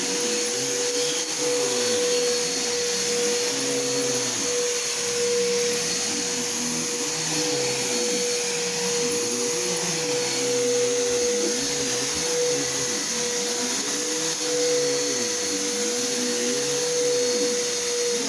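Bissell PowerForce Helix Turbo upright vacuum running steadily as it is pushed over spilled popcorn: a constant motor whine over a rushing hiss, with a lower hum that rises and falls every second or two.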